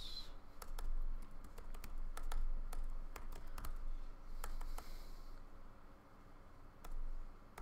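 Typing on a computer keyboard: a run of irregular key clicks as a word is typed, then backspaced to correct a misspelling, with a short pause about six seconds in before a few more keystrokes.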